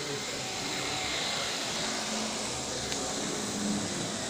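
HO-scale Tyco diesel locomotives, an F7 and a GP20, running on the layout track: a steady whirring drone of motors and wheels on rail, with one small click about three seconds in.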